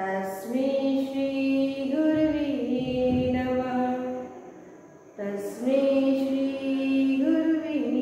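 A woman singing a prayer solo and unaccompanied, in slow, long-held notes. It comes in two phrases, with a breath about five seconds in.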